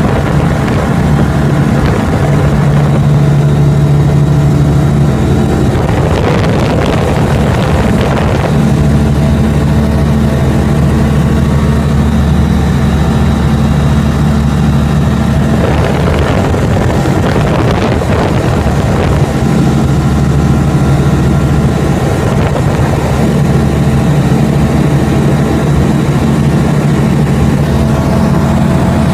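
Single-engine light aircraft's piston engine and propeller droning steadily, heard from inside the cockpit in flight. Two spells of louder rushing noise come over the drone, about a quarter of the way in and again past the middle.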